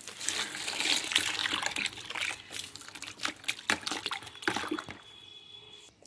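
Water from a garden hose spraying onto potted plants and splashing on the leaves and soil. It dies away about five seconds in.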